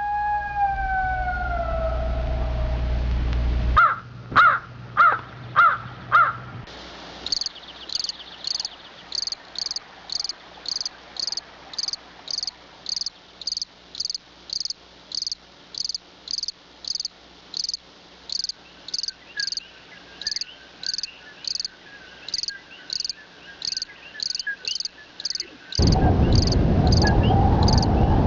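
A howl dies away, then about five short calls follow half a second apart, then a cricket chirps steadily about twice a second. Near the end the cricket is cut off by a sudden, loud rushing noise.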